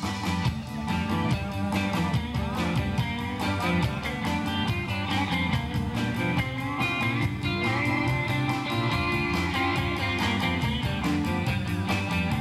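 A live rock and roll band playing, with guitar to the fore over a steady beat.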